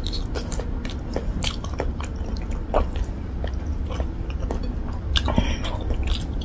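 A person chewing a mouthful of rice and pork-leg curry eaten by hand, with irregular wet mouth clicks and smacks over a low steady hum.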